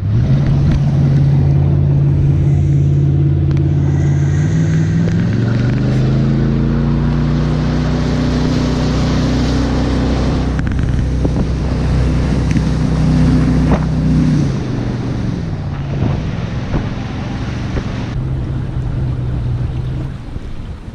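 An engine running steadily under heavy wind noise on the microphone. It speeds up about four seconds in, holds, and slows down again about two-thirds of the way through.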